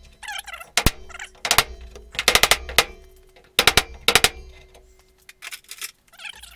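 Hammer driving a short piece of 2x4 against the underside of a 1977 Chevy C10's steel hood, in bursts of several quick blows, to push a split kink in the sheet metal back into shape. The hood panel rings faintly between blows.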